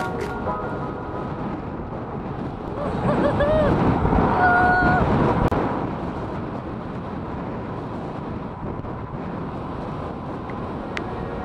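Wind buffeting the microphone and tyre rumble on asphalt as an off-road scooter rolls fast downhill. The noise swells louder for a few seconds near the middle, with a short steady two-note whine.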